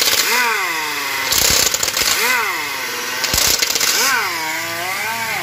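Impact wrench on the oil-pump bolts of an automatic transmission: its motor whines up and down in pitch three times, with two short loud bursts of hammering and hiss in between. The mechanic says the tool has started to malfunction again.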